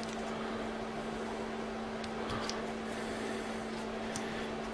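Steady low electrical hum with a faint hiss, the room's background drone, with a few faint ticks of small tools and parts being handled.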